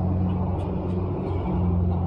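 Steady low hum of a motor vehicle engine running nearby, with faint street noise over it.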